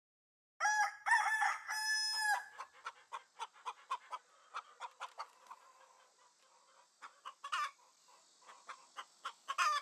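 A rooster crows once, a long call of about two seconds, then chickens cluck in short repeated calls, two or three a second, with a louder squawk about seven and a half seconds in and another near the end.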